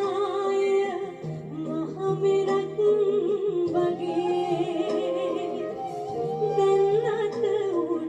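Background song: a voice singing long, wavering melodic lines over instrumental accompaniment.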